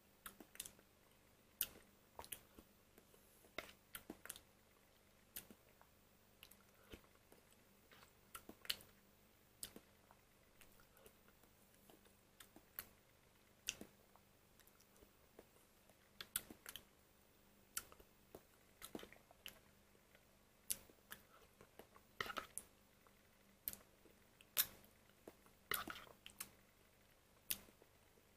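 Someone eating a soft buttermilk dessert from a plastic cup with a metal spoon: faint, irregular small clicks and smacks, one or two a second, a little louder near the end.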